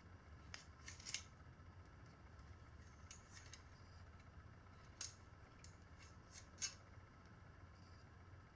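Faint, irregular metallic clicks and snicks from pliers working a length of safety wire, twisting it through a chain's master link; the loudest click comes near the end.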